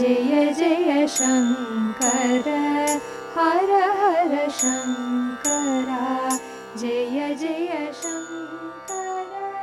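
Carnatic music: an ornamented melody that slides and bends between notes over a steady drone, with light bright strikes now and then.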